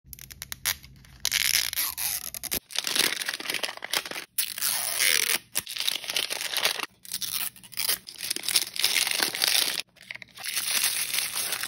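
Crinkly wrapper layers being peeled and torn off an L.O.L. Surprise! ball, in several rips of a second or two with short pauses between. A run of quick clicks comes first.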